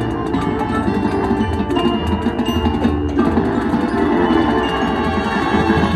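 Marching band playing its field show: many held notes over steady, rapid percussion strikes.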